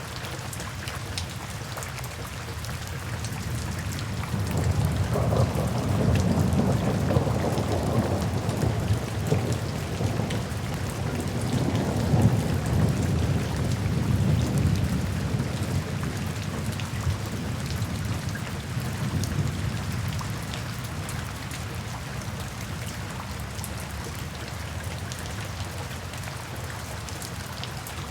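Steady rain falling, with a long low roll of thunder that swells in about four seconds in and slowly dies away over the next fifteen seconds or so.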